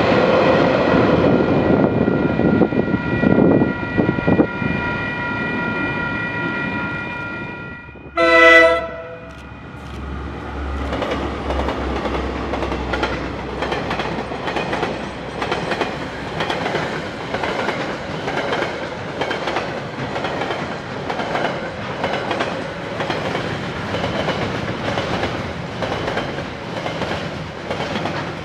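A train running past with a steady high whine over the rumble; after a cut about 8 s in, a short train horn blast, then a train rolling by with its wheels clicking over the rail joints in a steady rhythm.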